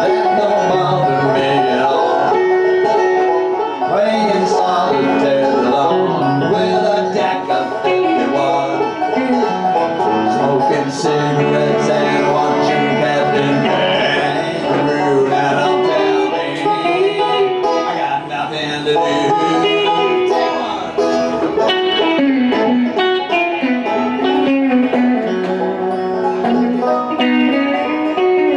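Bluegrass instrumental break played on banjo and electric guitar: a steady stream of quickly picked banjo notes over the guitar's chords and runs, with no singing.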